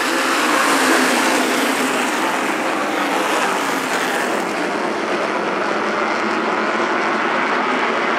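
A pack of SK Modified race cars racing past at speed, their V8 engines running together in one loud, continuous din, loudest about a second in as the nearest cars go by.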